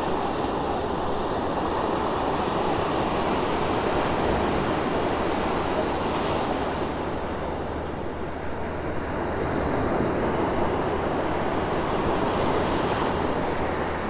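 Gulf of Mexico surf washing onto the beach in a steady rush, with wind buffeting the microphone.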